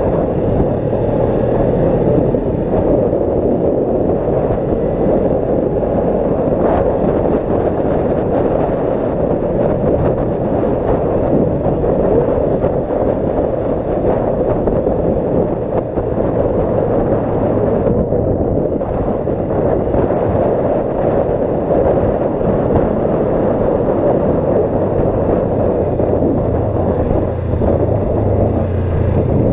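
Riding noise from a Suzuki GSX250R motorcycle: steady rushing wind on the microphone over the engine running at a steady cruise. The low engine hum grows a little stronger near the end.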